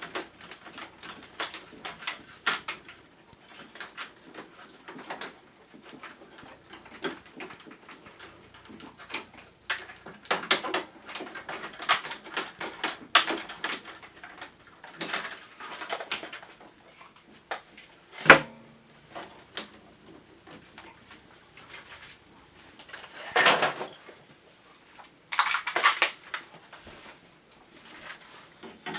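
Clicks, rattles and short scrapes of hard plastic parts being handled and unclipped while taking apart an air conditioner's indoor unit, with one sharp knock about eighteen seconds in.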